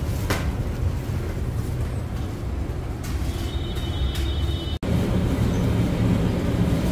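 Steady low mechanical rumble of bakery machinery, with a thin high whine for about a second and a half in the middle. The sound drops out for an instant just before five seconds, then resumes slightly louder.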